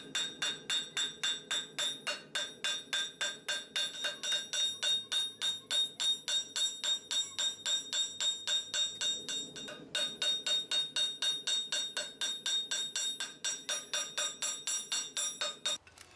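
Steel hammer striking hot 3/8-inch rebar on a steel anvil in a steady rhythm of about three to four blows a second, each blow ringing, with a short pause about ten seconds in. The blows are widening the hot flattened end into a spork blank.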